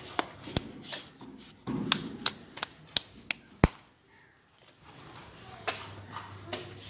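A quick series of sharp taps and clicks, about ten in the first four seconds, then a moment of silence and faint rustling.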